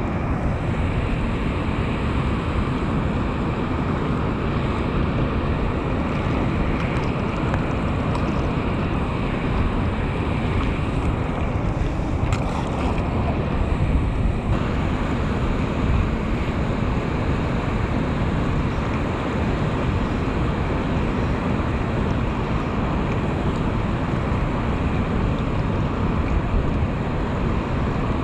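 Steady rushing of water pouring out of a concrete dam outlet into the pool below, with wind buffeting the microphone.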